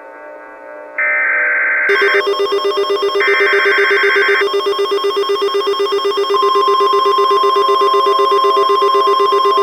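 Emergency Alert System tones from a mock tornado warning: two short, harsh digital header bursts, then, starting about two seconds in, a loud pulsing, ringing electronic alert tone. About six seconds in, a steady high tone joins it.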